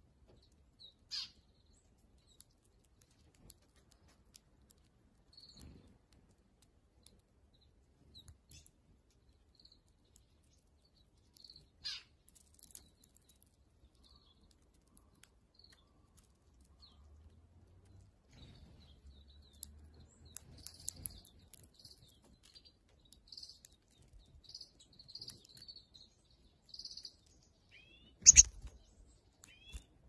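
Small birds chirping in short, high notes, sparse at first and busier in the last third. A few sharp clicks, the loudest near the end.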